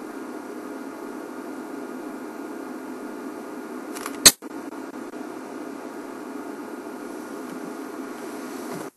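Steady low background hum with a single sharp click about four seconds in, followed by a brief drop in sound.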